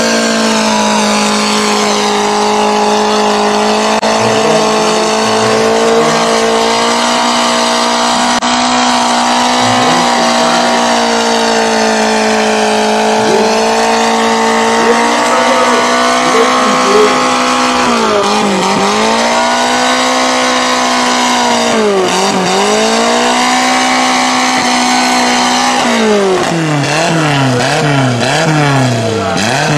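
Engine of a lifted Suzuki Samurai mud truck held at high revs as it churns through a mud pit, a steady high drone. The revs sag and recover twice past the middle, then rise and fall rapidly in a quick series of revs near the end.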